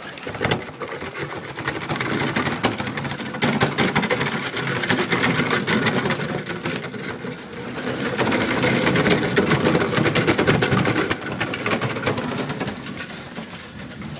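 HPI Crawler King RC truck's 35-turn brushed electric motor and geartrain whirring as it drives, with its tyres crunching over gravel. The sound swells and eases in loudness and drops off near the end.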